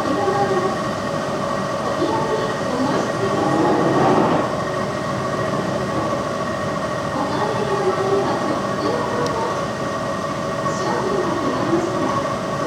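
Sanyo large package air conditioner running in heating mode: a steady fan rush with several constant whining tones from the unit.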